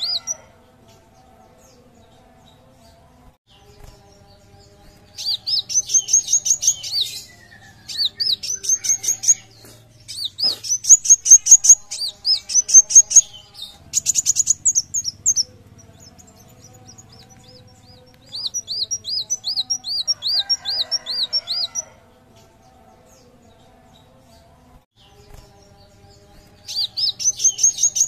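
A kolibri wulung sunbird singing: about six bursts of fast, high, looping whistled notes, roughly four notes a second, each burst lasting one to three seconds with short pauses between.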